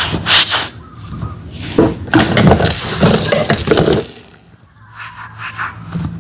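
Small hard objects clattering and rattling in quick irregular strokes, thickening into a dense stretch of clatter about two seconds in, then dropping away before a few lighter clicks.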